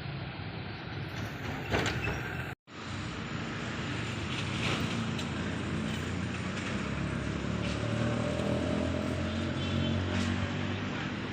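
Steady low rumble of running vehicle engines. The sound cuts out completely for a split second about two and a half seconds in, then the rumble resumes.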